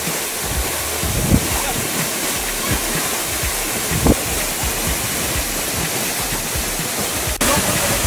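Waterfall pouring close by: a loud, steady rush of falling water. There are a few low thumps, about a second in and about four seconds in, and the rush gets suddenly louder near the end.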